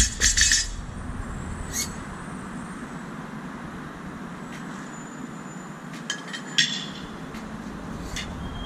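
A barbell dropped from overhead bouncing and rattling on rubber flooring, settling within the first half-second, over steady street traffic noise. A few light metallic clinks come about six seconds in.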